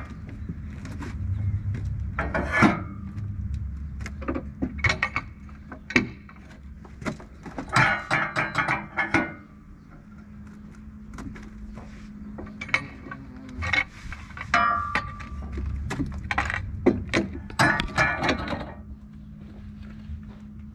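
Boards and slabs being handled on a Wood-Mizer sawmill: irregular wooden knocks and metal clanks in clusters, over the steady low hum of the idling sawmill engine.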